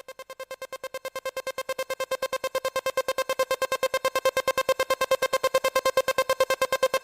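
Electronic background music: a single synth note pulsing rapidly and evenly, about eight or nine beats a second, fading in and growing louder.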